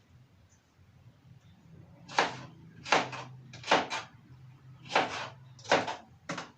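A kitchen knife chopping okra on a cutting board: about seven separate knocks at an uneven pace, starting about two seconds in, over a faint low hum.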